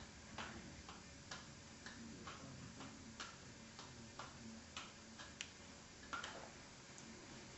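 Faint soft taps of juggled balls landing in a child's hands, about one to two a second at an uneven beat, over a quiet room hiss.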